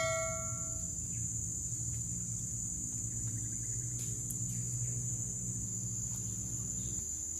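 Insects droning with a steady high-pitched buzz, over a low steady rumble. A ringing tone fades out in the first second.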